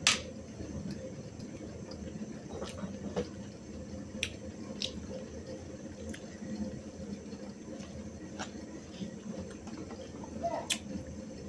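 Eating by hand from steel plates and bowls: soft handling of food with scattered sharp clicks and clinks of steel serving spoons and bowls, the loudest right at the start and another near the end.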